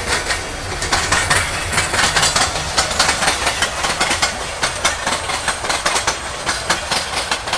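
Express passenger train passing at speed, its wheels clattering rapidly over the rail joints.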